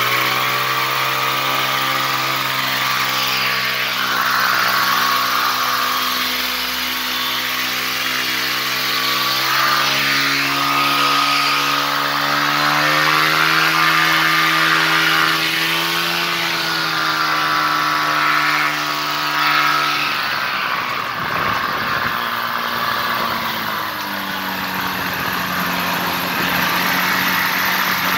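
Weight-shift ultralight trike's engine and propeller running while it taxis on grass, its note holding fairly steady with a slight rise and fall. About twenty seconds in the engine is throttled back, dropping to a lower, steady note.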